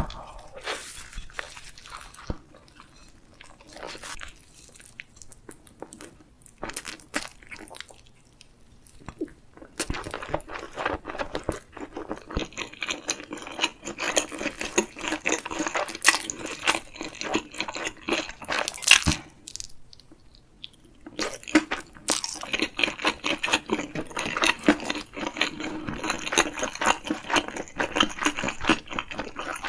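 Close-miked chewing of cheese gimbap (Korean seaweed rice rolls): crunching and wet mouth sounds that come and go, quieter for a few seconds near the start and again about two-thirds of the way through.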